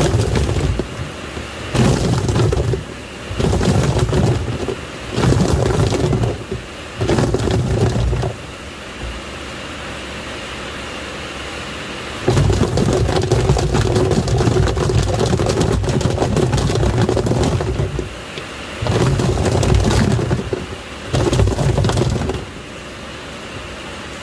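Washing machine agitating water with plastic toys inside. The motor churns in bursts of a second or so with short pauses between them, and there is one longer run of about six seconds in the middle. Water sloshes and the toys clatter against the tub.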